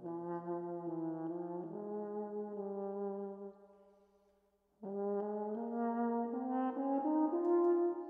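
Solo French horn improvising in F minor, played without tuning first: a long held note that fades out about three and a half seconds in, a brief pause, then a new phrase of notes stepping from one pitch to the next.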